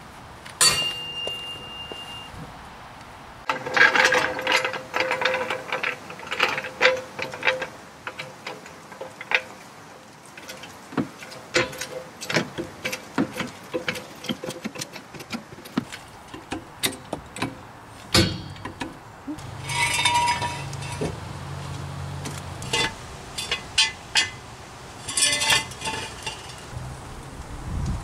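Hand tools and metal parts clinking and clicking, with ratchet-like sounds, during work on a Honda Acty kei truck's front suspension. The knocks come at irregular intervals, and there is a low hum for a couple of seconds about twenty seconds in.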